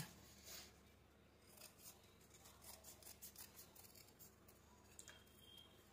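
Scissors snipping through stiff buckram interfacing in a series of faint, short, irregular cuts along a curved line.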